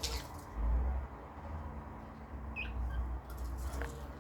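Budgerigar giving two short, soft chirps about halfway through, over a low rumble.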